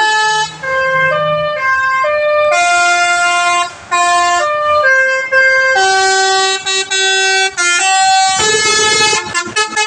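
Bus 'telolet' musical horn playing a tune in a reedy, melodica-like (pianika) voice: a run of held notes stepping up and down in pitch, each lasting about half a second to a second. Near the end the tune breaks up into a rougher, clicking stretch.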